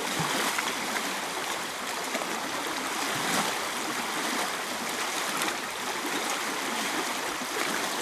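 River water rushing through open rapids, a steady, even rush that stays level throughout.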